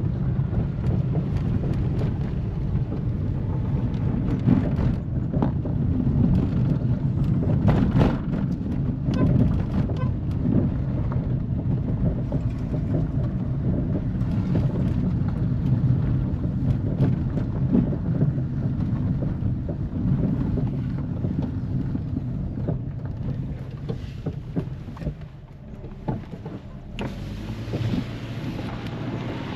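Vehicle driving along a road: steady low engine and road rumble with frequent knocks and rattles. It dips briefly, then changes to a brighter hiss near the end.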